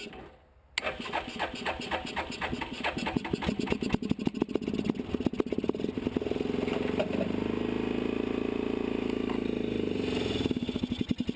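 The 1988 Suzuki Quadrunner 300's single-cylinder engine being cranked by its electric starter, pausing briefly, then cranking again until it catches about four seconds in and runs at a fast choke idle. It is a cold start on full choke, the sign that the repaired choke is now working.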